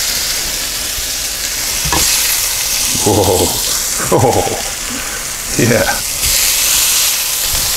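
Filet mignon steaks and mushrooms sizzling steadily on a cast iron grill plate over an induction cooktop, with a brief click about two seconds in as metal tongs handle the steaks.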